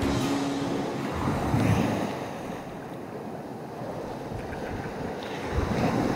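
Sea waves washing on the shore with wind buffeting the microphone; the surf swells about one and a half seconds in and again near the end.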